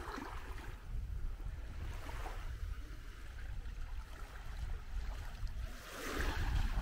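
Wind rumbling on the microphone over small waves washing onto a sandy beach, with a louder wash about six seconds in.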